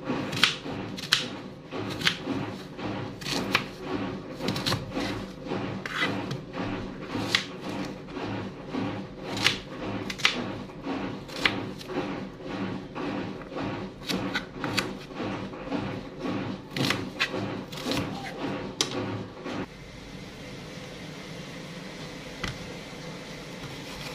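Knife chopping a red onion on a plastic cutting board: sharp, irregular taps about one to two a second, stopping about twenty seconds in.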